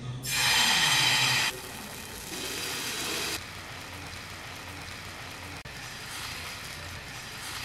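Wheat-flour dosa batter hitting a hot oiled tawa and sizzling loudly for about a second. A softer sizzle follows as the ladle spreads the batter out in a circle, then a steady low hiss.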